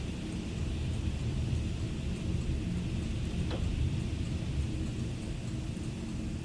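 Heavy rain falling steadily, with a low rumble of thunder that swells through the middle and eases off again.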